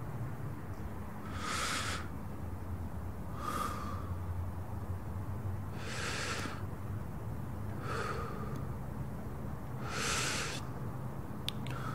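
Short breathy hisses, like sharp breaths, about every two seconds, each about half a second long, over a low steady hum.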